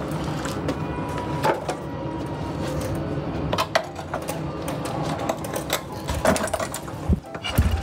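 A classic motorcycle being kicked over and worked on without firing up: clicks and knocks from the kickstart and bike over a steady low rumble, with two heavy thumps near the end.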